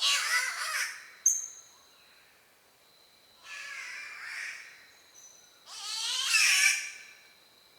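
Spotted catbirds giving three harsh, yowling calls, each about a second long, the middle one fainter; the calls are rich in overtones that waver up and down. A short high chirp cuts in twice between them, over a faint steady high tone.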